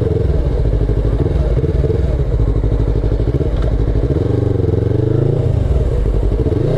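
Motorcycle engine running steadily while ridden; about four seconds in the revs drop and then pick up again.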